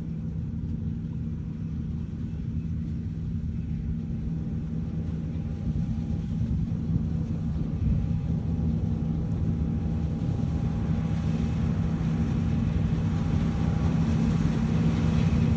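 Combine harvester running steadily while cutting wheat: a low engine drone with a steady hum, growing gradually louder toward the end.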